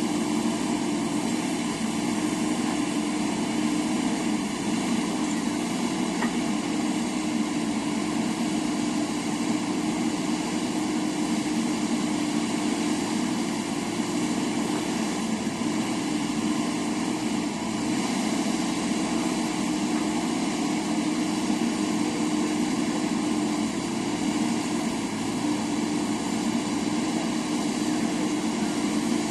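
JCB backhoe loader's diesel engine running at a steady, unchanging speed.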